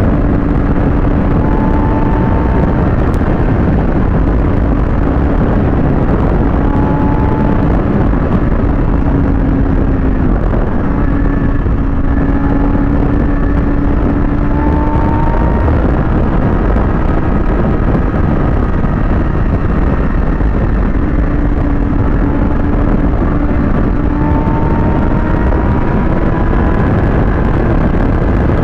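Kawasaki ZX-6R's inline-four engine running at a steady cruising speed, its note holding nearly level with small dips and rises, under heavy wind rush on the microphone.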